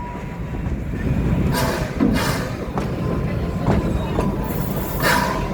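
Amusement-park train running along its track: a steady low rumble with several short clicks and knocks from the wheels and cars.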